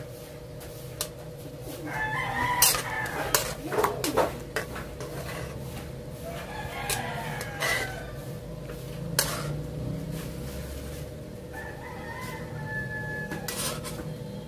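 A rooster crows about three times in the background, each call drawn out for over a second. Through it come sharp clicks and scrapes of metal tongs against the pan and the plate as the beef and mushroom gravy is served out.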